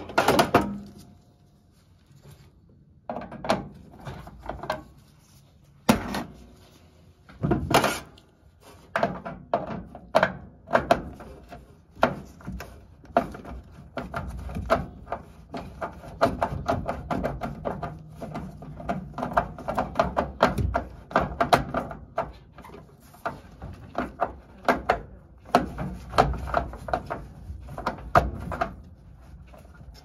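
Knocks, clicks and rattles of a draft inducer motor and its hose being handled and fitted in a furnace cabinet by gloved hands. The sharp knocks come a few at a time at first, then become a near-continuous run of clicks from about nine seconds in.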